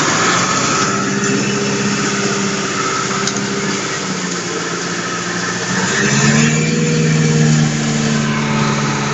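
An engine running steadily, its pitch and level rising about six seconds in as it speeds up, then holding.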